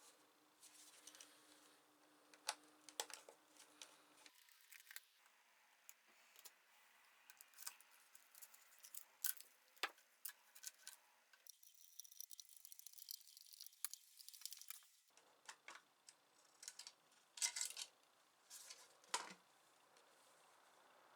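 Faint, scattered small clicks and taps of a multimeter's plastic case and parts being handled and worked on, with a louder cluster of clicks late on.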